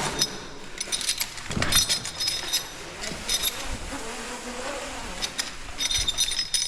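Rope running through a rappel descender on a long descent, the metal gear clicking and buzzing in short bouts.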